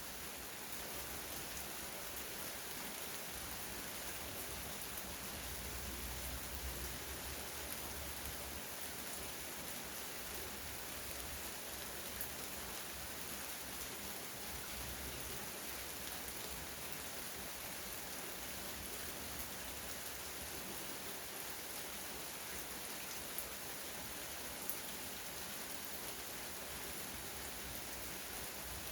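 Steady rain shower falling as an even hiss, with a few sharper ticks here and there.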